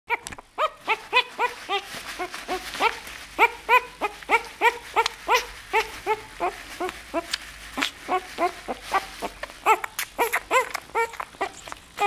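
Nine-day-old bull terrier puppy crying with short, high-pitched squeals, each rising then falling in pitch, about three a second without a break.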